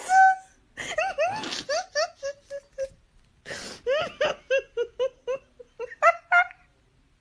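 High-pitched hysterical laughter in quick repeated "ha" pulses, broken by gasping breaths.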